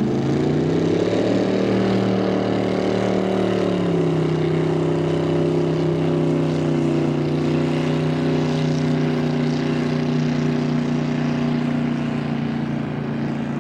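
Speedboat engine running hard as the Q Boat passes at speed, its pitch climbing over the first second or so, stepping down about four seconds in, then holding steady and fading a little near the end.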